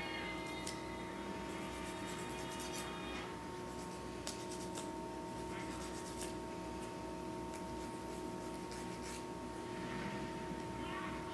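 Soft rustling and rubbing of a sleeping bulldog puppy stirring against couch fabric, with scattered faint clicks over a steady hum.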